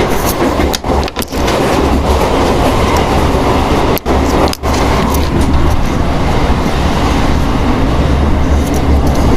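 Local passenger train in motion, heard from inside the carriage: a loud, steady rumble and rattle of the running coach, cutting out briefly a few times.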